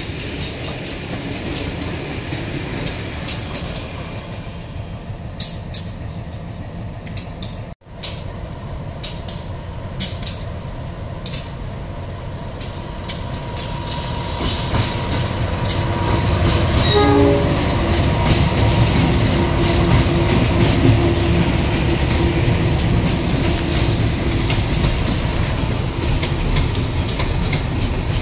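A train rolling past, its wheels clacking repeatedly over the rail joints. The sound cuts out briefly about eight seconds in. In the second half a steady tone joins in, and the rumble grows louder.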